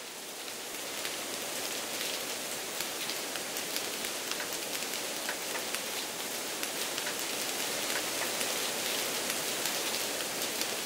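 Heavy rain pouring down: a steady hiss of downpour dotted with many sharp taps of individual drops striking close by.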